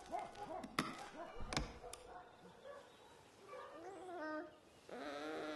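A few sharp knocks in the first two seconds, then a baby starts to fuss and cry, the wavering cries getting stronger near the end.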